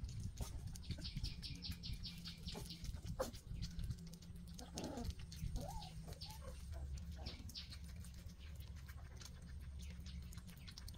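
Young puppies, about 25 days old: a quick run of clicking sounds from one lapping milk, then a few short whimpers about five seconds in.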